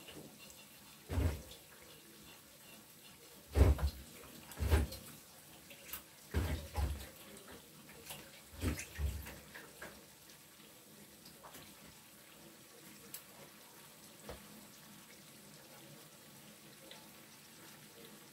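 Faint steady watery hiss of okro stew cooking in a pan, with several dull low knocks and bumps during the first ten seconds or so.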